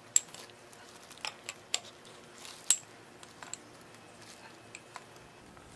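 Light metallic clicks and clinks from a piston and its rings being handled, with two sharper clicks, one just after the start and one a little under three seconds in, and several softer ones between.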